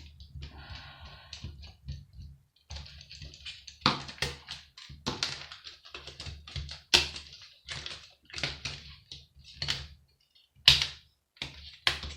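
Irregular sharp clicks and knocks of plastic and steel parts of a Sky TV box being handled and taken apart, the loudest about seven seconds in and just before eleven seconds in.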